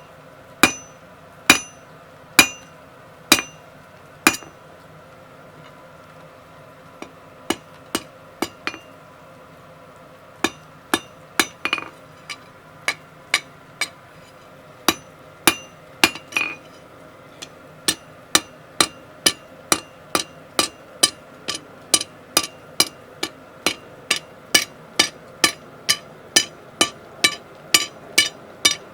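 Blacksmith's hand hammer striking hot steel on an anvil, each blow followed by a bright ring from the anvil, flattening a forged hexagonal blob on round bar. Six blows, a pause of a few seconds, then blows resume and quicken to about two a second near the end.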